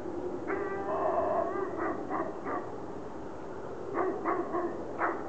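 A dog barks and yelps several times. About half a second in there is one longer whining call, heard over a steady low drone like a distant plane engine.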